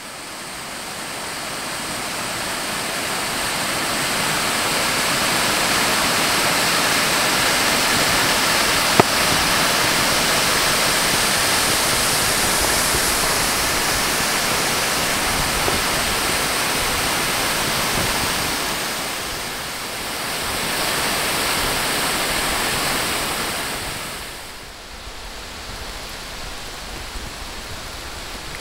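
Rushing water of a mountain creek's cascades and waterfall swollen by heavy rain, a steady full noise that fades in at the start. About four seconds before the end it drops to a softer, steady hiss.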